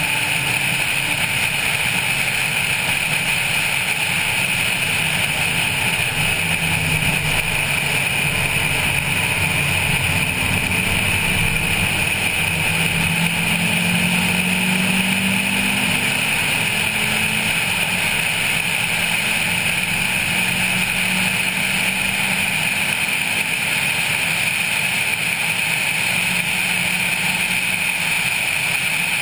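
Honda Civic 1.5 at speed, heard through a roof-mounted camera: steady wind and road noise over the car's engine, whose note climbs under acceleration around the middle and then drops back.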